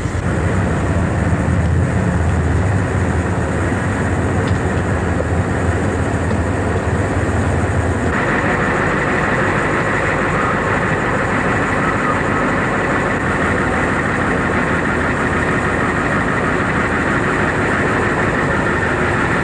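Steady outdoor vehicle engine noise with no speech: a low rumble for about eight seconds, then a sudden change to a thinner, hissier noise.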